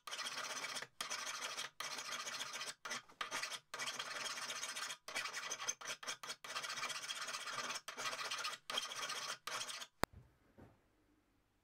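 Hand file rasping across a steel hammer head held in a bench vise, in long strokes of about a second each with short pauses between. The filing stops about ten seconds in, followed by a single sharp click.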